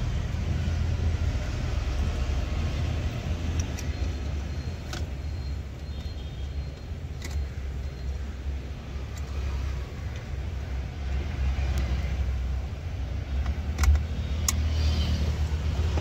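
A few sharp plastic clicks of wiring connectors being handled and plugged in under a car's dashboard, over a steady low rumble.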